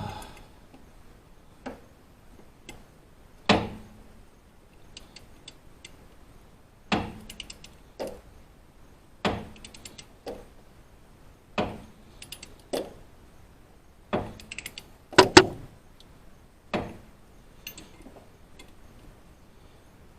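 Hand tools on an engine while bolts are tightened: short runs of ratchet-wrench clicks mixed with scattered metal knocks and clinks, coming every second or two. The loudest knocks are a pair about fifteen seconds in.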